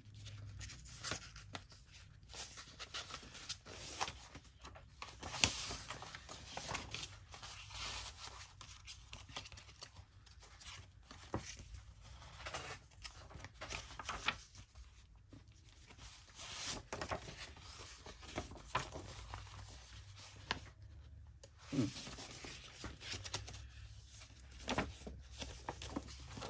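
Paper being handled at a craft desk: irregular rustling, sliding and crinkling of sheets and journal pages, with a few soft bumps.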